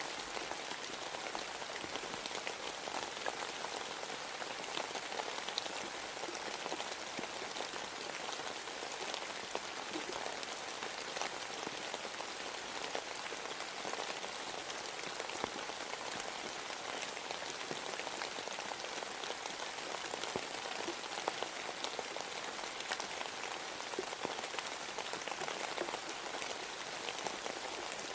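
Steady rain falling: an even hiss dotted with the small ticks of single drops.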